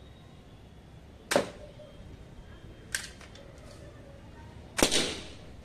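Spring-powered plastic toy BB gun fired three times, about two seconds apart, each shot a sharp snap. The last shot is the loudest, with a longer ringing tail.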